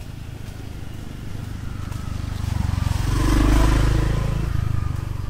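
A motor scooter riding past close by. Its engine hum grows louder to a peak about three and a half seconds in, then drops in pitch and fades.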